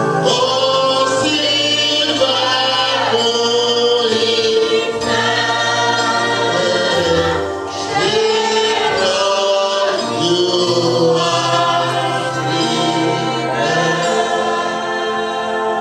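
Church choir singing a gospel song, led by a man singing into a microphone, over a steady low accompaniment. The volume dips briefly about seven and a half seconds in.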